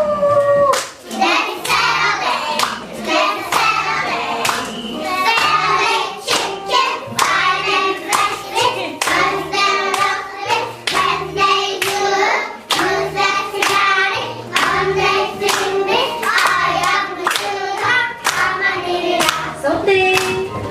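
A group of young children singing an English song over a backing track, with steady clapping on the beat about twice a second.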